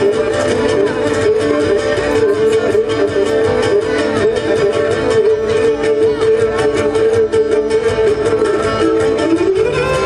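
Traditional Cretan music: a Cretan lyra playing an ornamented melody over fast, steady plucked-string accompaniment, the melody moving higher near the end.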